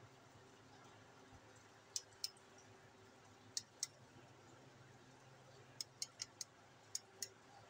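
Flashlight switch on a handheld stun-gun baton clicking: about eight sharp clicks, mostly in quick pairs.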